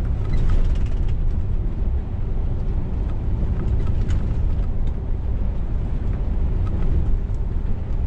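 Steady low drone of a Scania S500 truck's engine and road noise heard inside the cab while it drives along the highway.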